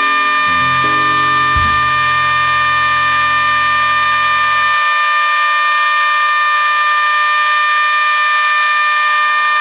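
Background music: a long held chord of steady tones, its lower notes dropping out about five seconds in.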